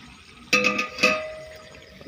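Steel lid clanging down onto a steel kadai twice, about half a second apart, the metal ringing on after each strike as the pan is covered.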